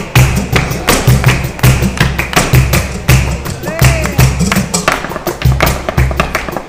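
Flamenco footwork: a dancer's shoes striking rapid, sharp, irregular stamps on a wooden dance board, over flamenco guitar.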